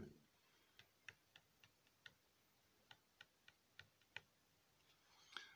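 Near silence: room tone with faint light ticks, about three a second, in two short runs.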